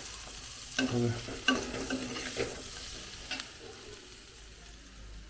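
Onions and ground spices frying in a kadai with a steady sizzle, a spatula stirring and scraping against the pan a few times. The sizzle grows quieter toward the end.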